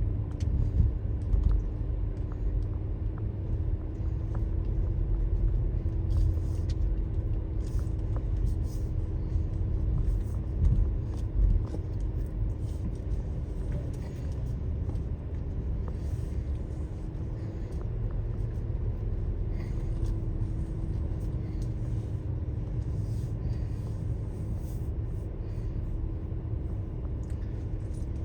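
Car driving along: a steady engine hum and low road rumble.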